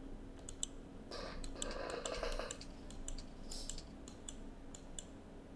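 Faint, irregular clicks of a computer keyboard and mouse, over a low steady hum, with a faint murmur a second or two in.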